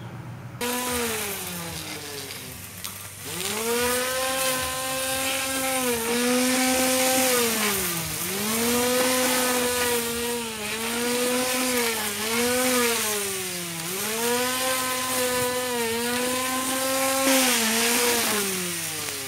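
Homemade push mower's 775 DC motor spinning its cutting blade: a high whine that dips in pitch each time the blade bogs down in tall grass, then picks back up. It falls away near the end.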